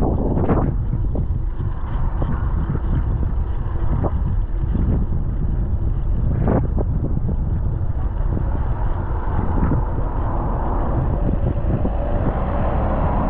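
Wind buffeting the microphone of a GoPro action camera on a moving bicycle, a steady low rumble, with a few sharp knocks about half a second in and again near four and six and a half seconds. Near the end a vehicle's hum rises as it passes.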